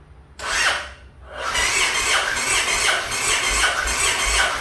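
Starter motor cranking the Yamaha XV1900's big V-twin engine: a short burst, then after a brief pause a longer crank with an even, rhythmic beat, the engine never catching. The engine turns over but won't fire, which the owner puts down to something wrong in setting up the new keyless ignition.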